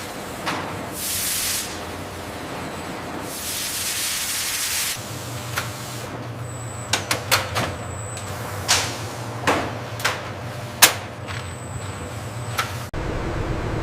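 Two bursts of hissing, then a run of sharp clicks and knocks, irregular and a few per second. Near the end the sound cuts abruptly to a steady rushing noise.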